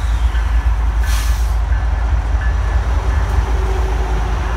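Freight train rolling past: a steady, heavy low rumble with a faint high tone that comes and goes, and a brief hiss about a second in.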